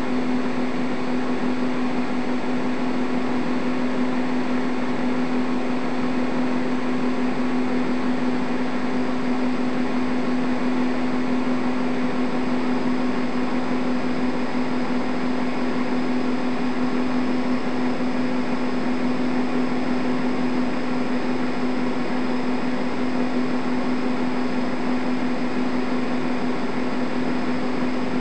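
Steady whirring hum of a home-movie film projector running, with a constant low tone and an even hiss.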